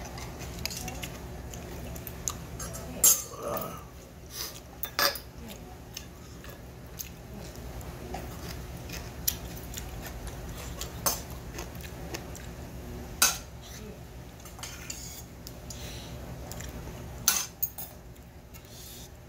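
A metal spoon clinking and scraping against a stainless steel bowl as barley bibimbap is stirred and scooped, in scattered sharp clinks, a few of them much louder than the rest. A steady low hum runs underneath.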